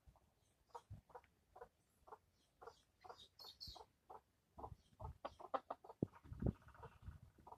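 Chickens clucking softly: a run of short clucks, about two or three a second, with a few higher calls a few seconds in and some dull thumps near the end.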